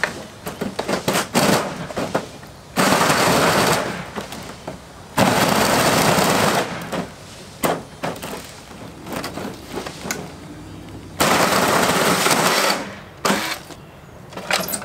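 Battery-powered electric chainsaw cutting into a flat-screen TV's casing in three bursts of about a second and a half each, with short sharp rattles and knocks between them.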